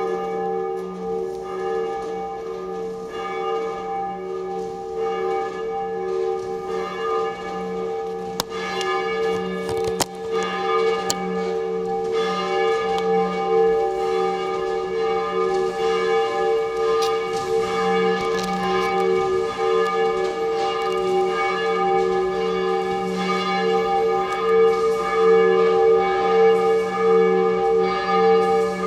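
Church bells ringing on and on, their tones overlapping in a sustained peal with a gently pulsing loudness. A brief sharp click about ten seconds in.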